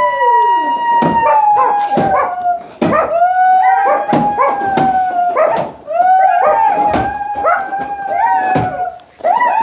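Howling: three long sustained cries of about three seconds each, sliding slightly down in pitch, one after another with short breaks, over repeated sharp knocks.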